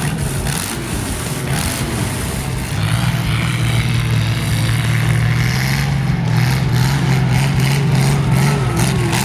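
Demolition derby car engine running hard, growing louder about three seconds in and then holding a steady, slightly rising pitch, with a rapid crackle of clicks over it.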